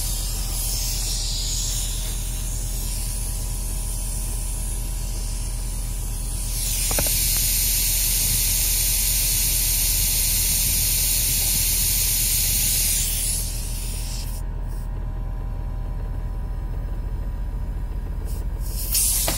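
Steady low hum of an idling car and its built-in load-leveler air compressor, with a loud hiss of compressed air from the inflating hose from about six and a half to thirteen seconds in.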